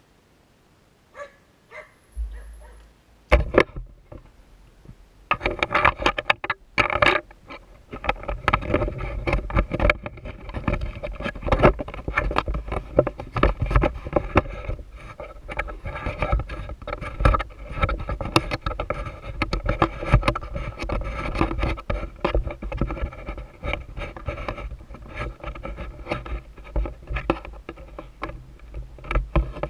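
A mini bike's small engine running steadily with a rapid, uneven patter. It settles in about eight seconds in, after a few seconds of knocks and clatter.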